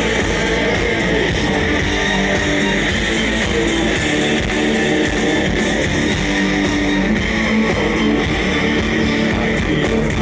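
A live rock band playing loud distorted electric guitars over bass, steady and unbroken.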